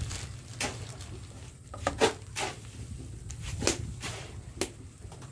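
Cooking sounds around a wok of salted shark simmering in broth: a steady low rumble under a handful of scattered clicks and knocks, the loudest about two seconds in.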